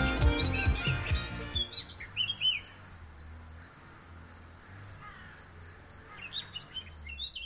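Music with a steady beat fading out in the first couple of seconds, leaving birds chirping: a few quick calls about two seconds in, a quieter stretch, then a flurry of chirps near the end.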